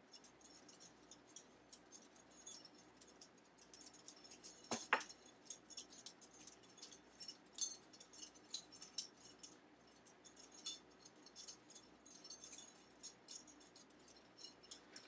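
Butterfly knife (balisong) being flipped, its handles and blade clicking and clinking against each other in quick irregular runs, with one sharper clack about five seconds in.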